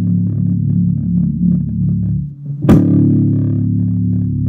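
Fender electric bass guitar: low notes ringing out and fading, then a hard-struck note about two and a half seconds in that rings on, played as a horror-movie sound.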